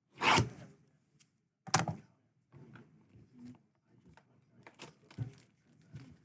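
A sealed trading-card box being handled and opened: two loud, sharp noisy strokes about a second and a half apart, then lighter rustling and taps of cardboard and wrapper.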